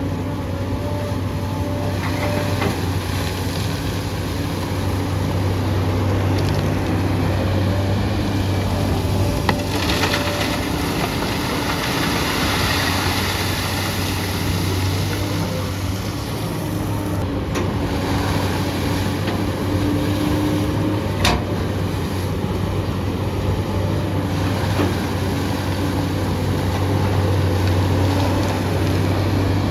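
SANY SY215 hydraulic excavator working gravel: its diesel engine runs steadily with a low hum, and a few sharp knocks come through, about three over the stretch.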